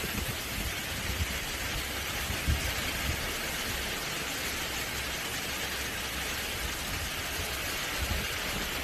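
Heavy cyclone rain pouring down steadily in a dense, even hiss, with a low, uneven rumble of wind gusts on the microphone.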